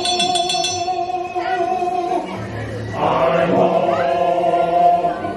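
Music with male voices singing together in chorus, holding long notes, with a louder phrase coming in about three seconds in.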